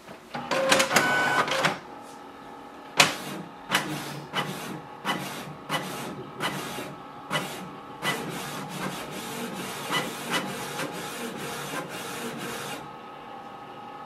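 Canon Pixma TS3429 inkjet printer making a colour copy. A loud mechanical whir starts about half a second in, then comes a long run of regular clicking strokes, about one to two a second, as the print head moves back and forth across the page. The strokes stop shortly before the end.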